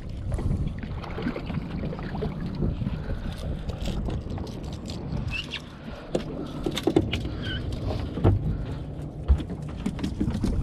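Wind buffeting the microphone over open water, with a few sharp knocks and clatters of fishing gear handled on a fibreglass boat deck, most of them in the second half.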